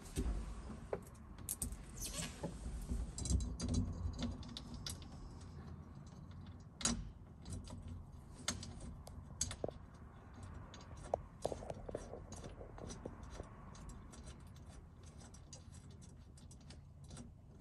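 Light, scattered clicks and knocks of hand work on a skid steer door: screws being started by hand and small parts handled against the metal frame, the sharpest knock about seven seconds in.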